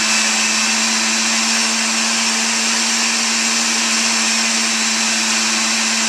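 Countertop blender running steadily, blending a liquid spinach, banana and coconut-milk smoothie: a steady motor hum over a whirring rush.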